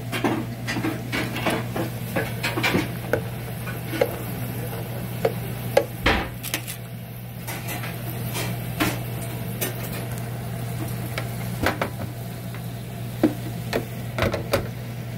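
Hot oil bubbling and sizzling in a small electric deep fryer as cut sticks fry in its wire basket. Metal tongs click and tap against the basket and bowl throughout, the sharpest knocks about six seconds in.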